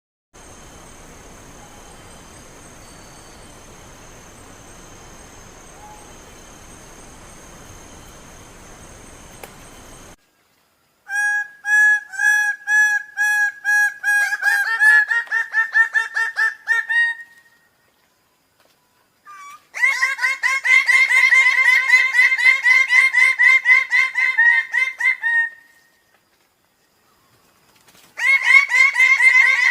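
Bird-of-paradise calls: loud series of fast, evenly repeated harsh notes in bouts of several seconds, each run speeding up. They follow about ten seconds of faint steady hiss with a thin high tone.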